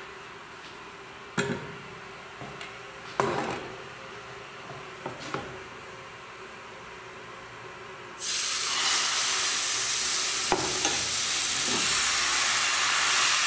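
A few clinks and knocks of kitchenware, then about eight seconds in a sudden, loud, steady sizzle as pancake batter goes into a hot oiled frying pan.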